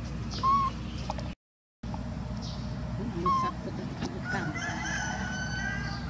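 Domestic fowl calling: two short high calls about three seconds apart, then a longer drawn-out call of about a second and a half with several held pitches.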